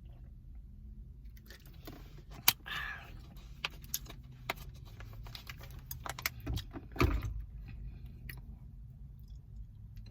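Eating and handling a plastic takeout bowl: scattered sharp clicks and a short scrape, the loudest click about two and a half seconds in, and a low thump about seven seconds in, over a steady low hum.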